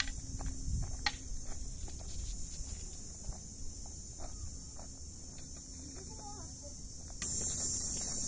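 Steady high-pitched insect drone from the dry scrub, with footsteps on a dry dirt trail under it; the insect sound gets suddenly louder about seven seconds in.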